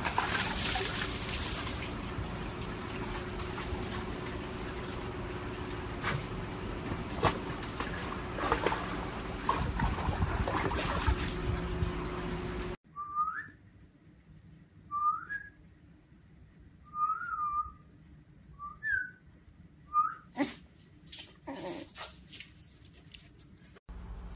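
Water sloshing and splashing in a plastic tub as a husky moves through it. Then the sound cuts to quiet, broken by about five short, high, whistle-like calls a couple of seconds apart.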